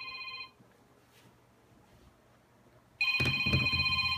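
Electronic telephone ring: a steady multi-tone ring that cuts off about half a second in, then after a pause of about two and a half seconds a second, louder ring starting about three seconds in, with low rumbling noise under it.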